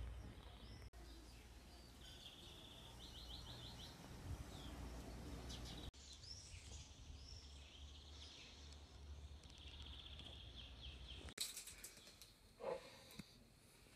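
Faint songbirds chirping and trilling in short phrases, over a low steady rumble; the background drops out briefly three times.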